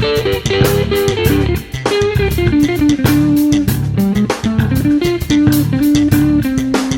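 Background music: electric guitar playing a melody over bass guitar and a steady drum beat.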